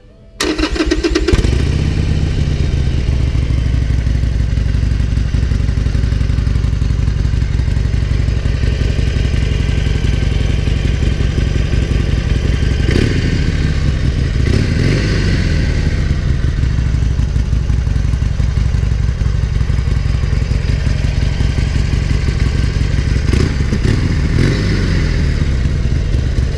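2017 Harley-Davidson Iron 883's air-cooled V-twin on its stock exhaust, cold-started about half a second in and then idling steadily, with a few brief revs in the middle and near the end.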